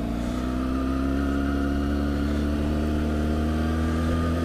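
A 2007 Kawasaki ZX-6R's inline-four engine running at a steady cruise while the bike is ridden, its note holding nearly level and easing down slightly.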